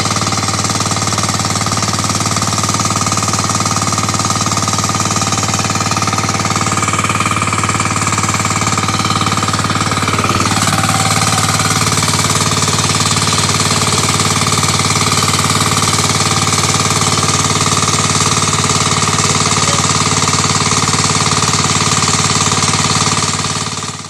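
Small engine-driven water pump running steadily at a fast, even beat, drawing water out of a dug pit through its suction pipe.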